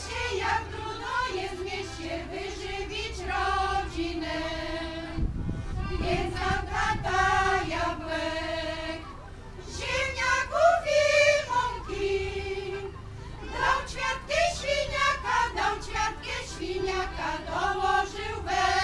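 Women's folk choir singing in phrases of held notes, accompanied by an accordion.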